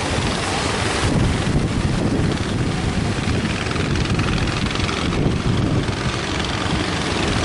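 Strong wind rumbling on the microphone over the steady noise of heavy surf.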